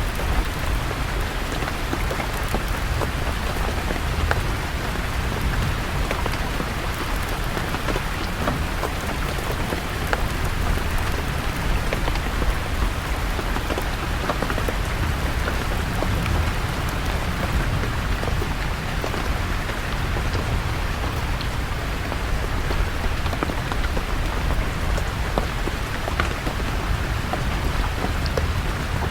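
Steady heavy rain falling on leaves, with many small drop ticks over an even hiss and a constant low rumble underneath.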